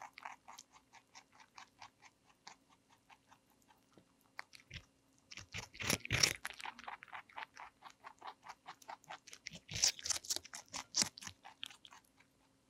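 Rabbit chewing raw cucumber: fast, even crunching at about five chews a second, with louder, crunchier bites about six seconds in and again around ten to eleven seconds. The chewing stops shortly before the end.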